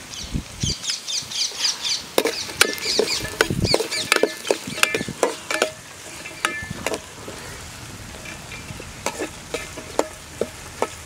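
Steel spoon stirring and scraping in a steel pot of sliced shallots and coconut frying in oil, with frequent sharp metallic clinks over a soft sizzle.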